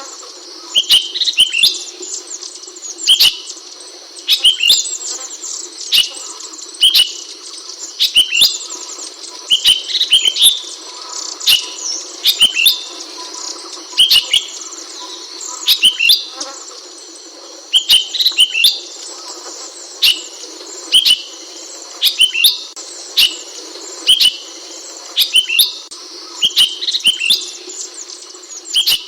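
Ashy bulbul (Hemixos flavala) calling over and over: short, sharp chirps about once a second, often in quick pairs, over a steady high hiss.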